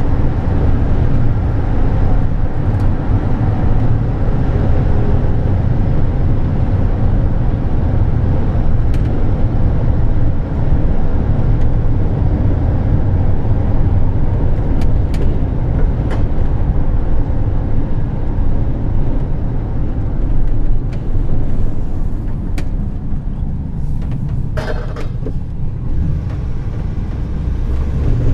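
Steady road and drivetrain noise heard inside the cab of a 2010 Ford E-350 cutaway van cruising at highway speed: a continuous low rumble of tyres and engine. There are a few faint clicks midway and a brief sharper sound a few seconds before the end.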